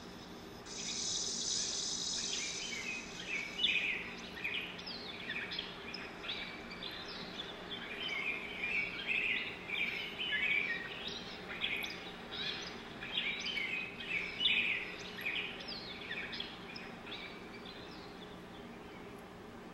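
Many short, high chirps and twitters like birdsong, crowding rapidly over one another and thinning out near the end, after a brief hiss at the start. A faint steady low hum runs underneath.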